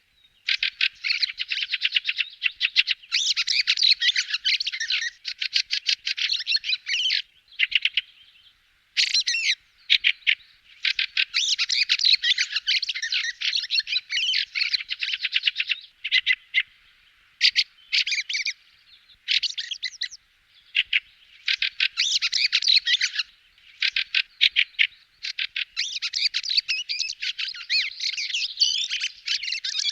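Fieldfare calling: a rapid, dense chattering of harsh notes, in runs of several seconds broken by short pauses.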